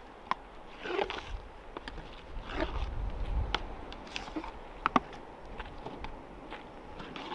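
Outdoor ambience: gusts of wind rumbling on the microphone about a second in and again around two and a half to three and a half seconds, with scattered sharp clicks and small crackles throughout.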